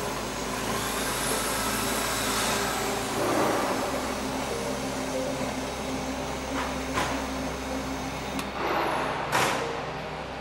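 WEISS WBL290F bench lathe running while cutting a thread on brass stock: a steady motor and gear hum, with brief louder noises about three seconds in and again near the end, and a few light clicks.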